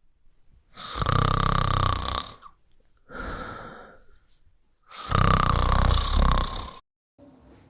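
A man snoring: two long, loud snores about four seconds apart, with a softer breath between them.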